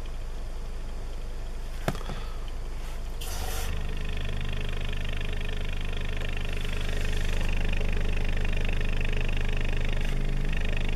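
Polk PSW10 subwoofer playing a steady low test tone, with a sharp click about two seconds in. From about three seconds a rushing air noise joins it and grows louder near the middle: port noise, which the owner was recreating by putting a hand into the port.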